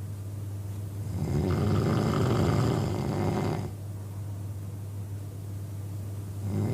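A man snoring: one loud, fluttering snore about a second in that lasts over two seconds, then a quieter stretch before the next snore begins near the end, over a steady low hum.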